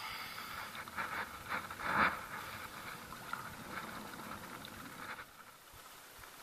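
Wind and small waves against a small foam boat, with irregular scraping and rustling from handling, and a louder knock or splash about two seconds in.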